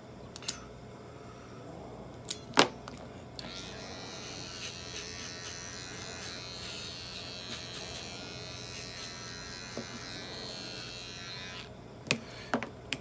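A few sharp snips of pet nail clippers cutting a cat's claws, the loudest about two and a half seconds in. Then a small handheld electric grooming tool held to the cat's paw runs with a steady buzz for about eight seconds and stops, followed by a couple of clicks near the end.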